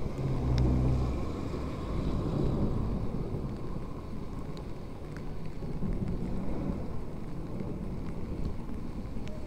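Rainy street ambience: a low, uneven rumble of wind buffeting the microphone, swelling briefly about half a second in, with a few faint ticks.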